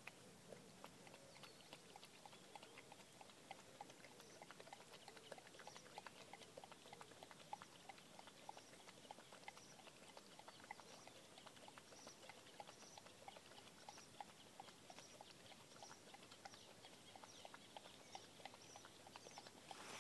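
Faint, quick wet clicks from a bull terrier's muzzle working in shallow water at the shoreline, many small clicks a second.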